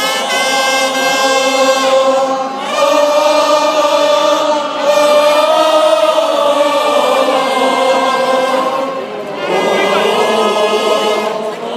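A large baseball crowd singing a chance-theme cheer song in unison, backed by the cheering section's trumpets. This chant signals a home-team scoring chance. The melody runs in long held notes, with short breaks between phrases.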